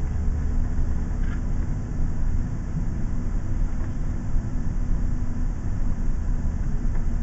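A 43-foot tag-axle motorhome driving slowly, heard from inside the cab: a steady low rumble of engine and road noise, with a steady hum that drops away about five and a half seconds in as the coach slows.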